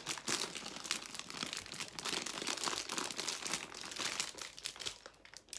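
Irregular crinkling and rustling of clear plastic parts bags, with small clicks, as Playmobil pieces are unpacked and handled; it dies down near the end.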